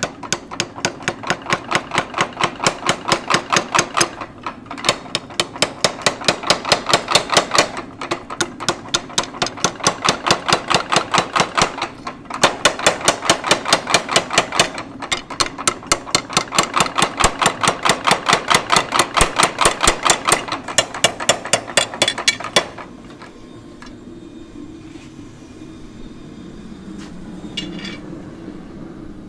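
A 50-pound Little Giant mechanical power hammer pounding hot steel in quick, even blows, about five a second. The blows come in runs of a few seconds with short breaks as the clutch is let off and on. They stop about three-quarters of the way through, leaving a steady low hum.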